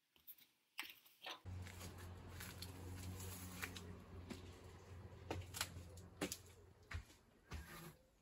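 Faint footsteps and clicks from a handheld camera being carried while walking, over a low steady hum that starts about a second and a half in.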